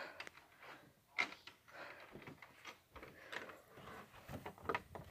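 Faint rustling and handling noise with a light click about a second in and a few soft knocks near the end, as a house door is handled and checked.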